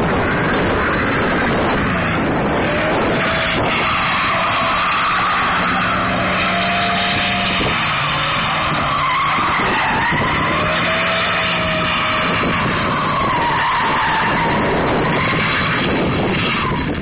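A Ford Lightning pickup's tyres squealing against the pavement throughout, the squeal wavering up and down in pitch, as in a burnout or donuts laying down burnt rubber.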